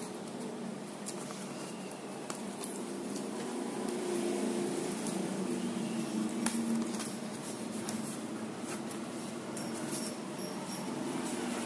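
Hands handling a cardboard box and picking at its taped seal: scattered small clicks, taps and scrapes of fingers and nails on cardboard, over a faint steady background hum.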